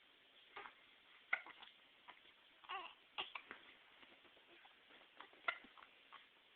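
Baby hiccupping: short, sharp hics a few seconds apart, the loudest a little over a second in and again about four seconds later, with a brief soft babbling sound between them.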